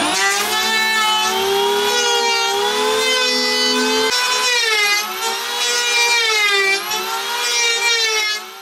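Handheld electric power tool running in one long burst with a high, steady whine. Its pitch wavers and sags briefly a few times, about four, five and seven seconds in, as it works into wood.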